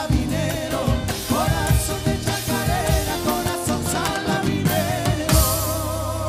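Background music: a song with a singer over a drum beat. A little over five seconds in it lands on a final hit and a long held note.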